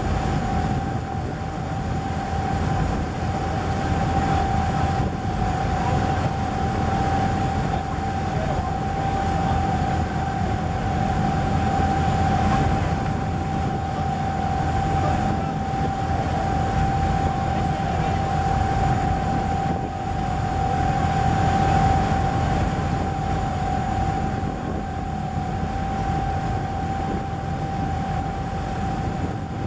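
Motorboat engine running steadily underway: a constant low rumble with a steady whine on top.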